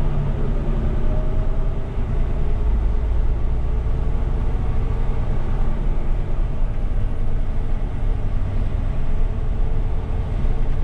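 Diesel big-rig engine running steadily at crawling speed, heard from inside the cab; the sound is low-pitched and even throughout.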